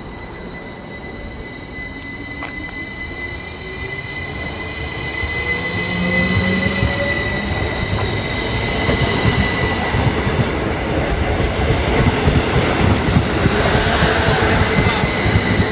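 A train approaching, growing steadily louder, with a steady high-pitched squeal and a whine that rises in pitch during the first half.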